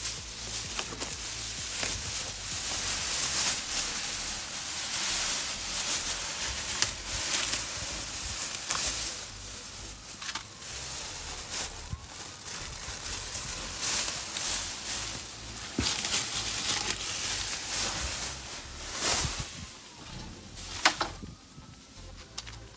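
Thin plastic masking sheet crinkling and rustling in irregular bursts as it is pulled away by hand.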